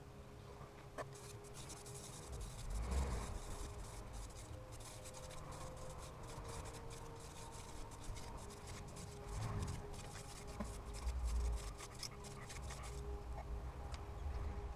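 Hand drill for fire by friction: a thin mullein spindle spun back and forth between the palms in the notch of an ivy hearth board, a fast, continuous dry rubbing and scratching of wood on wood. A few low thuds mix in.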